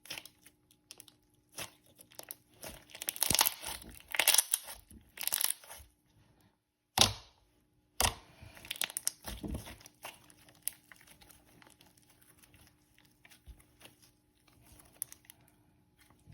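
Thick glossy slime being handled: squelching, crackling and popping in clusters, busiest in the first half, then thinning to a few faint pops.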